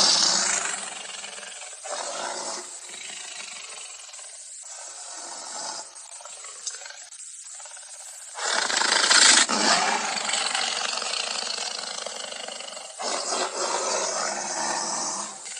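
Movie dinosaur sound effects of a Tarbosaurus roaring. A loud roar fades in the first second, followed by quieter growls, then another loud roar starts about eight and a half seconds in, and a third comes near the end.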